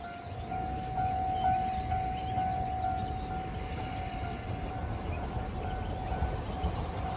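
Distant railway level-crossing alarm ringing: a steady electronic tone that pulses about twice a second, over a low rumbling background.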